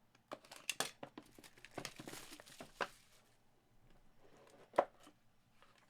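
Trading card box being opened and unwrapped: crinkling and tearing of the wrapping with light clicks and taps, and one sharper click nearly five seconds in.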